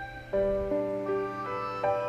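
Soft instrumental background music: a slow melody of held notes that change every half second or so.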